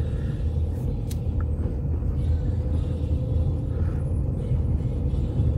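Car engine and tyre noise heard from inside the cabin while driving slowly along a street: a steady low rumble with a constant hum.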